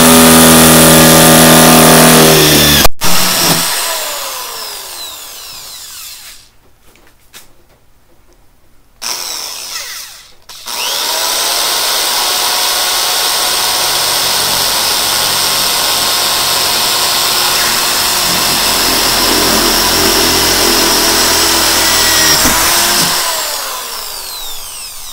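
Power drill boring 3/8-inch holes through a plastic kayak hull for well nuts. It runs at full speed, cuts off about three seconds in and spins down with falling pitch, gives a short burst after about nine seconds, then runs steadily for about twelve seconds before spinning down again near the end.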